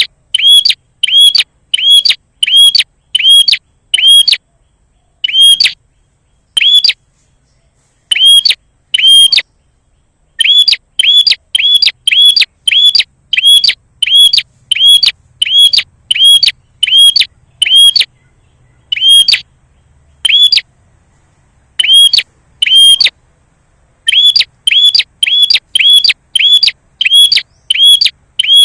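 Prenjak calling: loud, sharp chirps repeated about twice a second in runs, with short pauses between the runs. It is the kind of prenjak call recording used as a lure or tutor track to make other prenjak answer.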